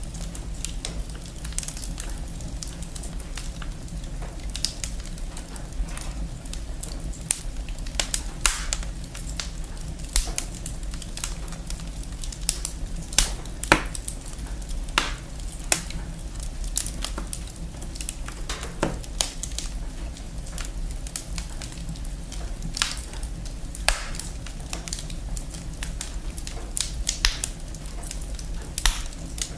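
Wood fire in a fireplace crackling, with irregular sharp pops scattered through it over a steady low hum.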